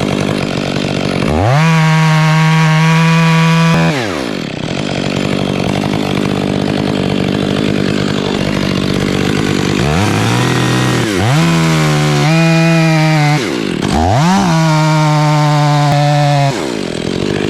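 Stihl chainsaw revved up to full throttle and held there for a couple of seconds at a time, four times, dropping back to idle between bursts.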